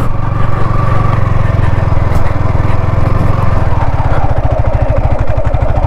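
Yamaha R15 M's 155 cc single-cylinder engine running at a steady, unchanging speed.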